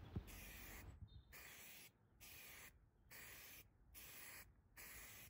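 Aerosol can of grey primer spraying in about six short, faint hisses of roughly half a second each, with brief pauses between them.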